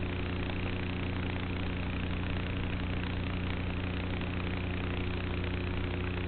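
Electric motor and propeller of an E-Flite Apprentice S RC plane running at a steady throttle, heard from its onboard camera as an even, unchanging hum with wind hiss over it.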